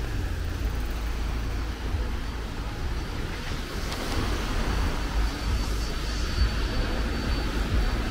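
Road traffic on a wet city street: a steady low rumble and the hiss of tyres on the wet road, with a faint high whine for a few seconds midway.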